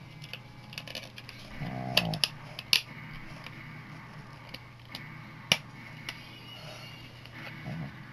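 Plastic Blu-ray/DVD case being handled, with sharp clicks and snaps as discs are pressed on and off the case's centre hubs. A brief pitched sound comes about two seconds in, and the loudest click about five and a half seconds in.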